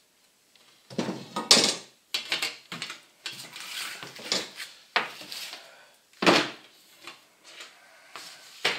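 Aluminium porthole frame parts and the glass pane being handled and set down: a series of clattering knocks and scrapes, loudest about a second in and again around six seconds in.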